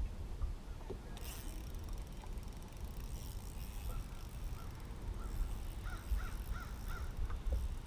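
A crow cawing: a run of short calls that starts about three seconds in and comes faster and louder near the end, over a low steady rumble.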